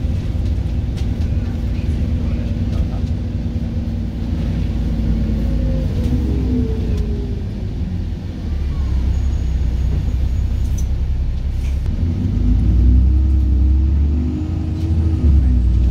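ADL Trident 2 double-decker bus driveline heard from the upper deck: a low rumble with a whine that drops in pitch about six seconds in as the bus slows, then a heavier rumble with a rising whine from about twelve seconds in as it pulls away again. A few short rattles and clicks come through.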